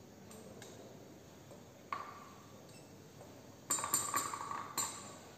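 Glass clinking: one sharp ringing tap about two seconds in, then a quick cluster of clinks near the end, as the glass viscometer knocks against glassware while it is set down.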